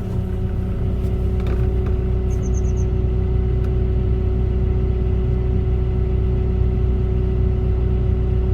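Volvo excavator's diesel engine running steadily at a lower speed after its revs have just dropped. A quick run of four high beeps comes about two seconds in.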